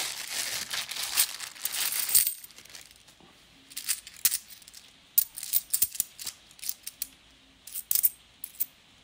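A thin plastic bag of 50p coins crinkling and rustling with the coins shifting inside, stopping a little over two seconds in. Then scattered light metallic clicks and clinks of the 50p coins knocking together as a stack is handled in the fingers.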